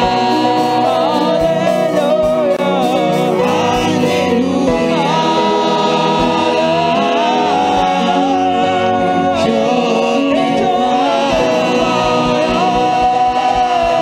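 Gospel worship song: singers holding long sung notes over a steady band accompaniment with a regular beat.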